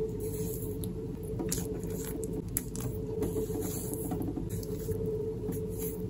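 Large wet chanterelle mushrooms being squeezed and pulled apart by hand while they are washed: soft, wet squishing and crackling made of many small irregular clicks, over a steady low background noise.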